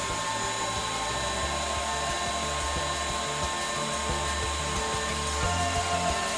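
Table saw running with its blade cutting into a wooden rod turned above it in a lathe jig: a steady high whine with the rasp of the cut. Background music plays alongside.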